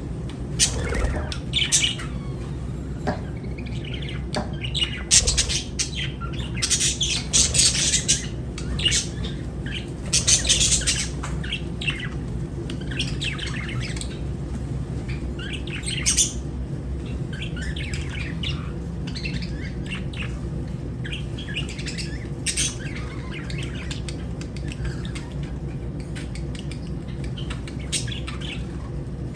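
Lovebirds chirping in shrill bursts of calls, loudest and busiest for about the first ten seconds, then softer and more scattered. A steady low hum runs underneath.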